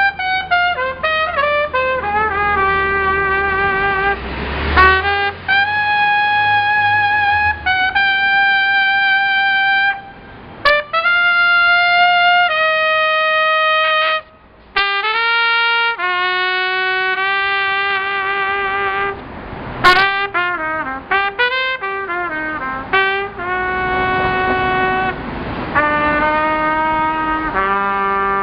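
A horn playing a solo melody: runs of quick short notes alternating with long held notes that waver with vibrato, broken by two brief pauses.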